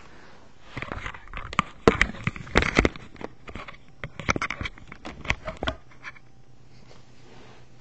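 Handling noise from a camera being moved about by hand: an irregular run of knocks, rubs and scratches against the microphone for about five seconds, then it stops and only quiet room tone with a low hum remains.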